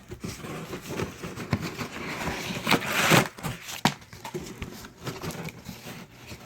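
Rummaging through a shipping box: packing material rustling and crinkling, with irregular knocks and clicks of parts being moved, the longest rustle about three seconds in.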